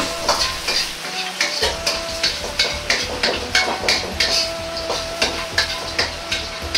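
Metal wok ladle scraping and knocking against a wok, about three strokes a second, over a steady gentle sizzle as minced garlic and dried chili are stir-fried in oil over low heat.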